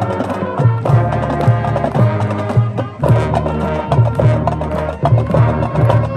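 Marching band playing, with brass and drums and percussion on a steady driving beat.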